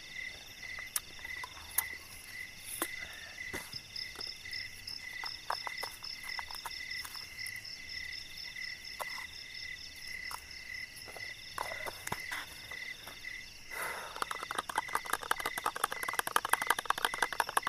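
Night chorus of frogs and insects. One call pulses about twice a second over steady high buzzing trills. About three-quarters of the way through, a fast rattling trill starts up and grows louder toward the end.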